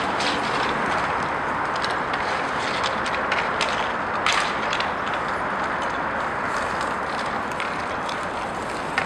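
Inline hockey game noise: skate wheels rolling across the rink floor in a steady rushing sound, with scattered sharp clacks of sticks and the puck. The loudest clack comes about four seconds in.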